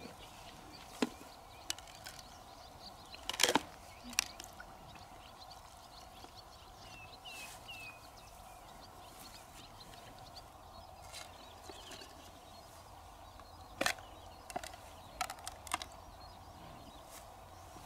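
Scattered short clicks and knocks of a knife and freshwater mussel shells as the shells are pried open and handled, over a steady faint outdoor hiss.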